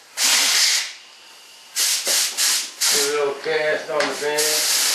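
Compressed-air touch-up spray gun loaded with Partall water-based mold release, hissing as the trigger is pulled: one short burst near the start, a few quick spurts in the middle, then a long steady spray near the end.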